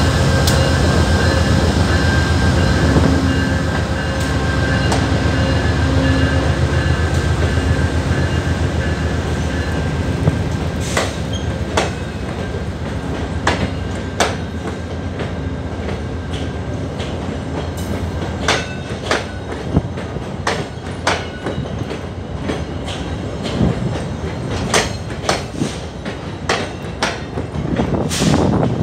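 A VIA Rail P42DC diesel locomotive pulls a passenger train past, its engine drone loud for the first ten seconds or so and then fading. The passenger cars then roll by, with sharp wheel clicks over the rail joints about once or twice a second.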